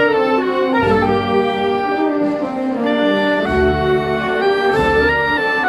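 Brass band playing a slow processional march: trumpets and trombones hold a sustained melody over deep bass notes that come and go every second or two.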